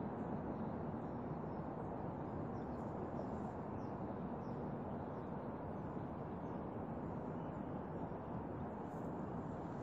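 Steady rushing background noise that stays unchanged throughout, with a few faint high chirps.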